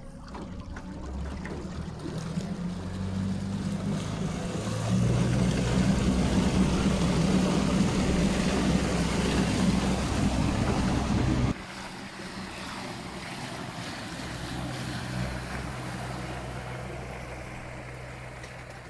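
Small open boat under way, pushed by a Crescent outboard converted to a submerged, direct-drive electric motor. Water rushes past the hull and wind hits the microphone, over a low hum that climbs in pitch as the boat speeds up in the first few seconds. The sound drops suddenly about eleven seconds in to a quieter wash of water.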